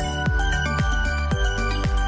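Background music with a steady beat under sustained tones.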